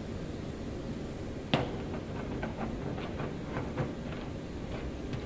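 A sharp metallic click about a second and a half in, then a run of light, irregular clicks as a brass threaded fitting is set into the bung hole of a metal oil drum and turned by hand.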